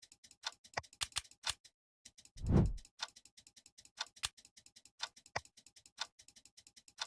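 Clock-like ticking, sharp clicks about three a second. A little after two seconds the ticking drops out for a moment, then a short low boom sounds, the loudest thing here, and the ticking goes on.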